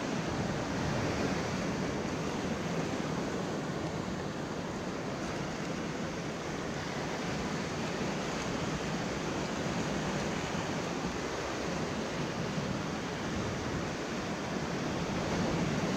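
Ocean swell washing and breaking over a rock shelf in a steady, continuous rush, with wind.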